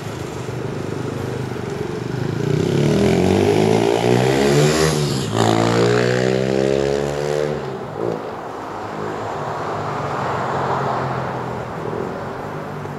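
A motor vehicle passing close by on the street: its engine gets louder, goes past about five seconds in with its note dropping in pitch, and fades away, over steady street noise. A short knock follows near the end of the pass.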